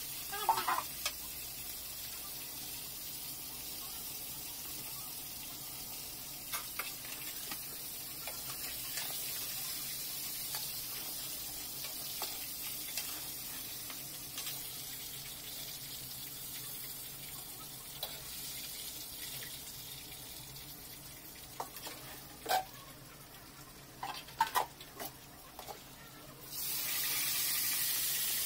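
Chicken cooking on a gas stove: a steady sizzle with a metal spatula clinking and scraping against an aluminium pot as the pieces are stirred with spices. Near the end a louder, denser sizzle starts suddenly, from chicken pieces deep-frying in oil in a karahi.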